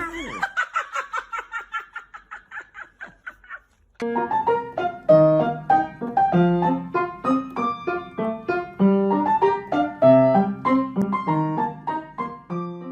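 Piano music, a simple melody of single notes, starting about four seconds in. Before it, a quick series of short high-pitched repeated sounds that fade out.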